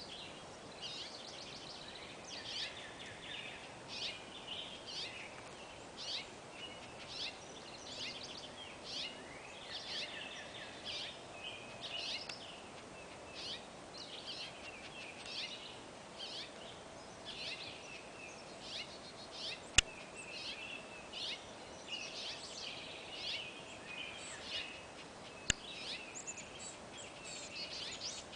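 Several songbirds chirping and singing in a dense, overlapping chorus of short, high calls. Two sharp clicks stand out, about 20 and 25 seconds in.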